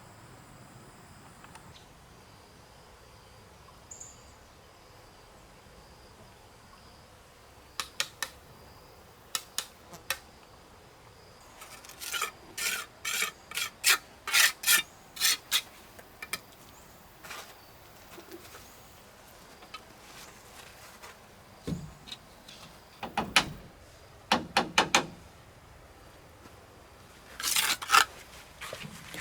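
Short scraping strokes of a hand tool, in irregular runs starting about a quarter of the way in, over a faint steady insect buzz.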